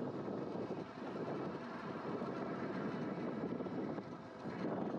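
Riding noise from an Engwe Engine Pro 2 fat-tyre e-bike moving at about 15 mph on pavement: wind rushing over the camera microphone with tyre and road noise. The sound is a steady rush that dips briefly about four seconds in.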